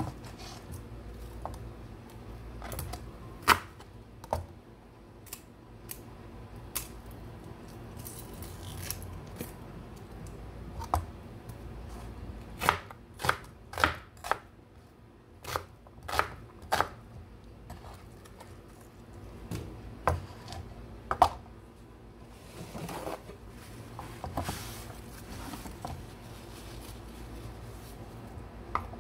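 Chef's knife chopping garlic and onion on a wooden cutting board: irregular sharp knocks of the blade hitting the board, with a quick run of several strikes midway.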